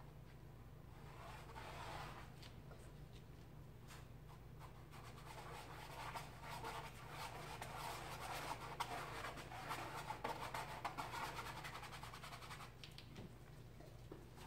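A fine paintbrush rubbing and scratching across canvas in faint, scratchy strokes, busiest from about six to twelve seconds in and then stopping. A steady low hum runs underneath.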